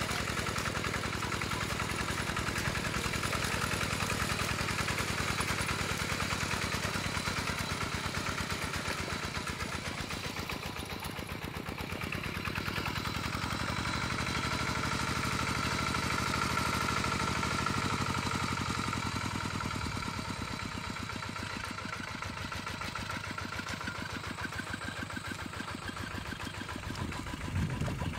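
A two-wheel walking tractor's single-cylinder diesel engine running steadily with a fast, even chugging as the tractor is worked through thick mud. The engine note swells a little in the middle and then eases off.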